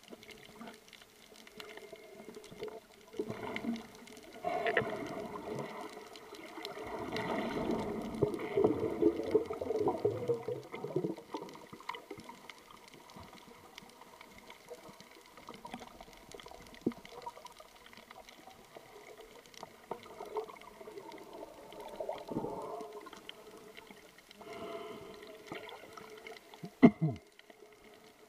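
Underwater sound heard through a camera's waterproof housing while snorkeling: muffled water swishing and bubbling over a steady low hum, louder between about four and eleven seconds in, with a short falling sweep near the end.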